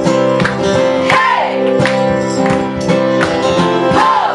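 Live acoustic band playing: strummed acoustic guitars holding steady chords, with voices singing over them and a couple of notes sliding down.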